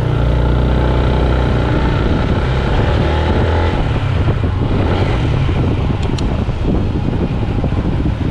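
Small motor scooter's engine running as it is ridden along a street, a steady low drone with road noise. There is a brief sharp click about six seconds in.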